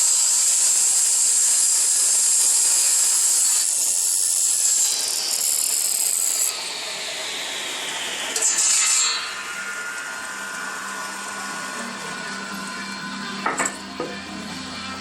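Old Grizzly table saw cutting wood: a loud, high cutting noise for about the first six seconds, then a falling whine as the cut ends and the saw keeps running more quietly with a steady hum. The owner finds the saw powerful enough but with a lot of vibration.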